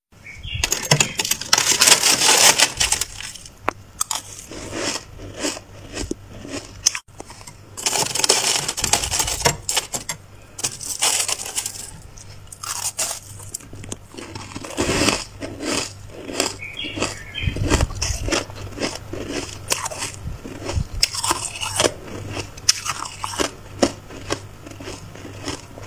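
Built-up freezer frost being scraped away, a run of crunchy, gritty scraping strokes, with longer stretches of scraping about a second in and again around eight to twelve seconds in.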